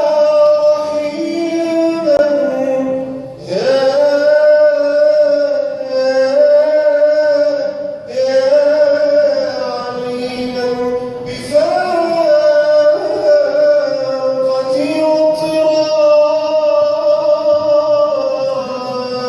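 A solo male voice singing an Arabic nasheed, unaccompanied, in long held and ornamented phrases with short breath breaks between them.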